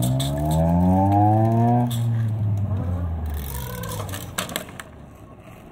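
Motor vehicle engine accelerating, its pitch rising steadily for about two seconds and then fading away. A few sharp clacks follow a little before the end.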